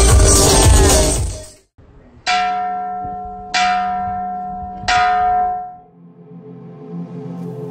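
Brass temple bell rung three times by pulling its clapper cord, the strikes about 1.3 seconds apart, each ringing out and fading. Dance music fades out just before the first strike, and soft ambient music comes in near the end.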